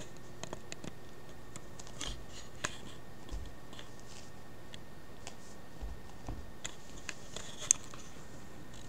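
A kitten scuffling and clawing at a cord on carpet: scattered soft scratches and rustles over a steady hiss, with one sharp click near the end.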